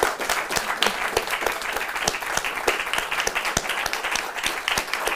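Audience applauding: many hands clapping in a dense, steady patter with no pause.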